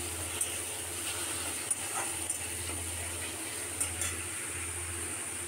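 Chopped tomatoes sizzling in oil in a metal kadai, with a metal spatula scraping and clinking against the pan a few times as they are stirred, the last clinks about four seconds in. A steady low hum runs underneath.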